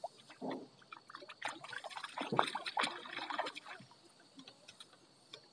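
Water sloshing and splashing, with a quick run of small knocks and clicks that dies away about four seconds in.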